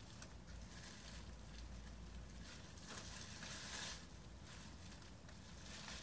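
Faint crinkling and rustling of plastic bubble wrap as it is pulled off a wrapped object.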